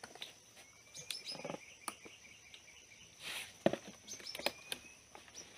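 Birds giving short chirps and calls several times, over a steady high insect tone.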